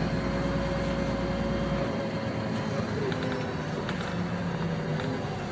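Inside a moving LiAZ-5292.65 city bus: engine and road noise with a steady drivetrain whine. The deep rumble eases off about two seconds in and the whine fades soon after, with a few light rattles near the end.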